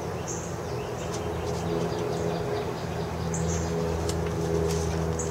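A steady low engine hum, with a few very short high bird chirps over it.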